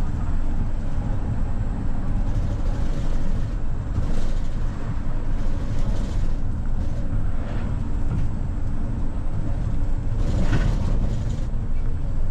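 A city bus driving, heard from inside the cabin: engine and road noise as a steady, mostly low-pitched rumble, with a brief brighter noise about ten seconds in.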